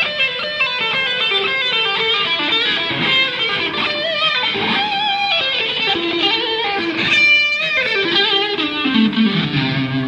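Electric guitar played fast in a sound check: a dense run of quick single notes, a short scratchy burst about seven seconds in, and a falling line of notes near the end.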